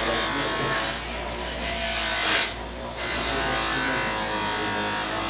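Bench buffer motor running steadily while a brass part is pressed against its rouge-charged cloth buffing wheel, the work rubbing on the wheel. A brief louder rush of rubbing comes about two seconds in.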